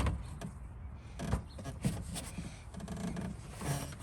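Gallon jug of engine oil slowly emptying through a funnel into the filler, with irregular glugs and small clicks over a low background rumble.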